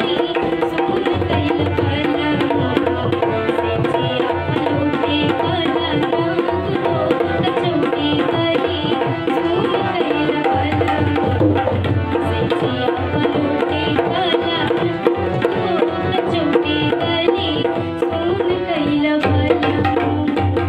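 A young girl singing a Bhojpuri folk song over steady percussion accompaniment.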